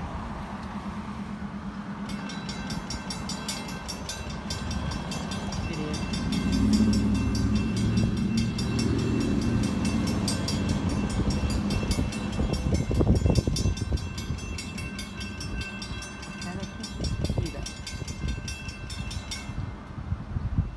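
Railroad grade-crossing warning bell ringing rapidly and steadily, starting about two seconds in and stopping shortly before the end, signalling an approaching train. A low rumble swells under it in the middle.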